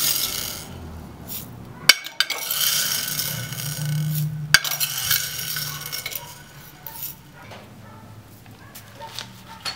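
Steel ball bearings being scooped with a metal spoon from a glass baking dish of acetone, rattling and clinking against the glass and the spoon, with a few sharp clinks about two and four and a half seconds in. Softer rubbing follows near the end as the bearings are rolled in a cloth rag.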